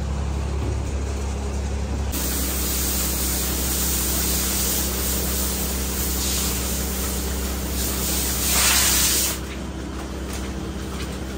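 Water hose spraying in a milking parlour pit: a steady hiss that starts about two seconds in, grows loudest near its end and stops shortly before the end, over a steady low machine hum.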